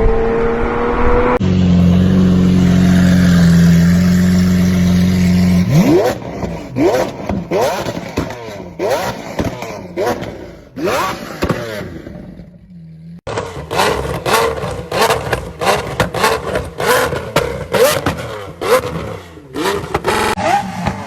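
Lamborghini supercar engine revved through its exhaust: a held steady note for a few seconds, then a string of quick throttle blips, each rising sharply in pitch, with popping and crackling from the exhaust between them.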